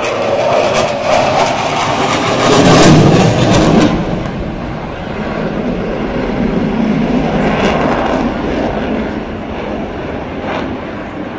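Jet aircraft flying past, a loud noise that swells to a peak about three seconds in, eases, rises again more weakly a few seconds later and then fades.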